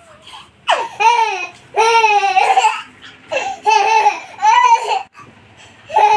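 A young child's high-pitched laughing squeals: a string of short, arched whoops, about six of them with brief gaps between.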